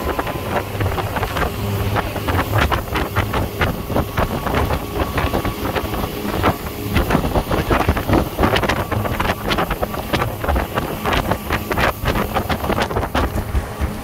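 Motorboat running at speed while towing, its engine rumble mixed with rushing water from the wake. Wind buffets the microphone in irregular crackling thumps throughout.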